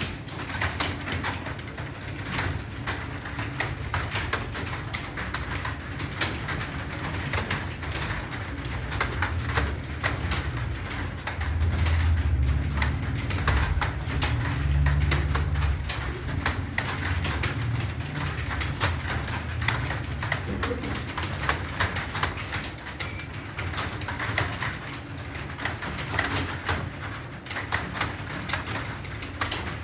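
Rapid, continuous typing on an Acer computer keyboard: a steady stream of key clicks at several strokes a second, as in a timed typing test. A low rumble runs underneath and swells in the middle.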